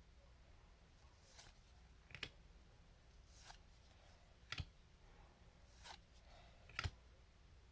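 Trading cards being handled and flipped through one at a time: about six soft clicks and swishes, roughly one a second, with a sharper tap every couple of seconds.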